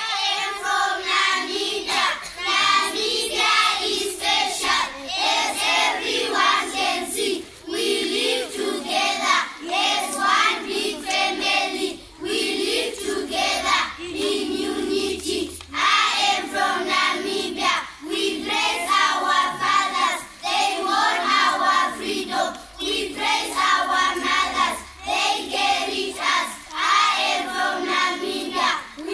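A group of schoolchildren singing together as a choir, in phrases with short breaths between them.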